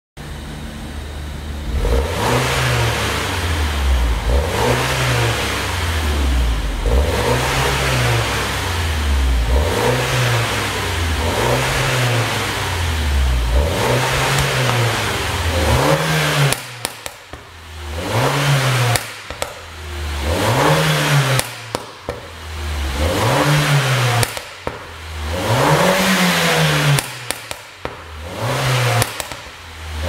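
2012 MINI Roadster (R59) engine revved over and over through its tuned exhaust, the pitch rising and falling with each blip. From about halfway through, the revs drop back between blips with sharp pops and crackles on the overrun, the pop-and-crackle exhaust tune.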